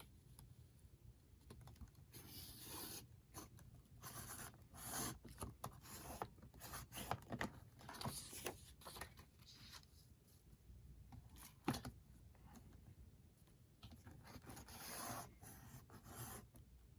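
Faint, intermittent scraping and rubbing of paper and board being worked by hand in bookbinding, with a few light taps.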